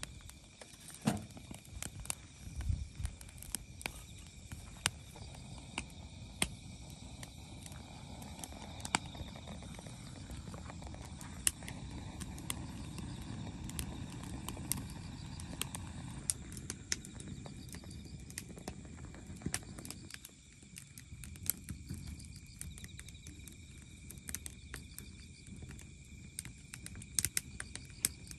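Firewood crackling and popping in a folding fire pit: irregular sharp snaps over a low rush of burning. The rush drops away about two-thirds of the way through while the snaps go on.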